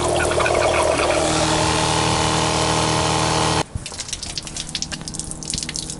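A 12-volt water pump running with a steady hum while water sprays from a pull-out sprayer head into a stainless steel sink. About three and a half seconds in this cuts off abruptly, giving way to quieter, irregular splashing of drain water falling from under the van onto concrete.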